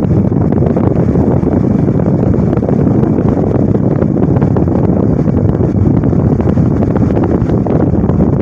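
Twin Star infrared fan-forced heater's blower running, a loud, steady rush of air with a low rumble and no change in the sound.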